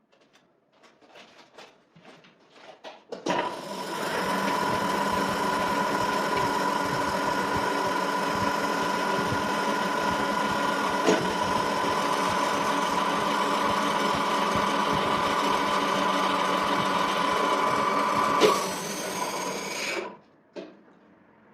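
Metal lathe starting up about three seconds in and running steadily with a constant whine, then shutting off near the end; a few light handling clicks come before it starts.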